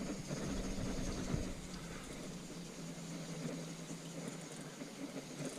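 Boat motor running steadily at trolling speed, a low hum that drops slightly in pitch about two seconds in.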